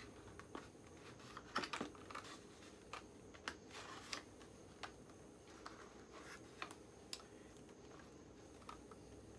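Faint, irregular clicks and crinkles of a doll's cardboard box and plastic packaging being handled as the doll is worked out of it.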